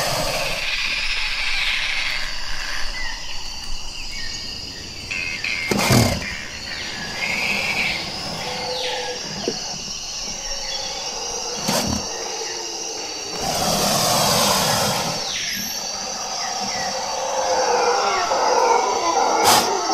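Composed rainforest soundscape: a steady high insect buzz with bird chirps over it. Three sharp knocks come about six seconds apart, and a denser, louder mix of animal sound builds in the last few seconds.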